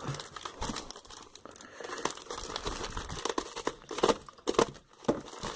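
Paper wrapping being crumpled and pulled open by hand: irregular crinkling and tearing rustles, a few louder ones about four seconds in.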